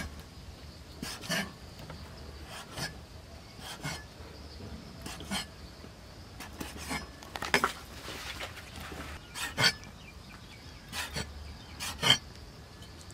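A kitchen knife cuts pig intestine into pieces on a wooden chopping board. The blade knocks on the board irregularly, about once a second, with some double knocks.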